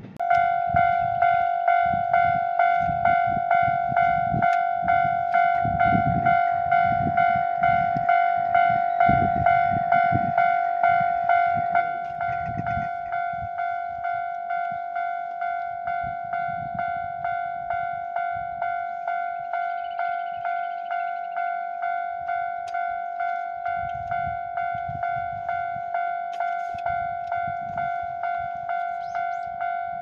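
Japanese level-crossing alarm ringing its electronic 'kan-kan' warning bell, about two strikes a second, with the barriers lowered for an approaching train. About twelve seconds in it drops to a lower volume and keeps ringing.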